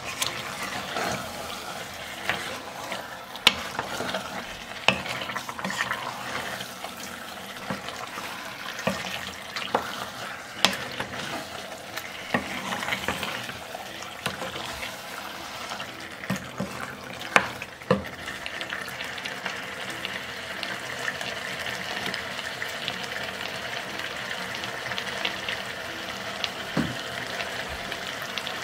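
Wooden spoon stirring beef tripe in a thick tomato sauce in a pot, scraping and knocking against the pot, over a sizzle. About two-thirds through the knocks stop and a steady sizzle goes on.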